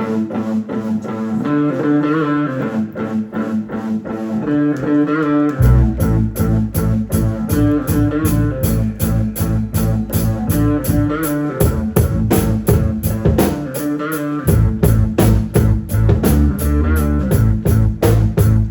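Rock band playing live: a guitar riff alone at first, then bass and drums come in about five and a half seconds in. The low end drops out for a few seconds past the middle and then returns with the full band.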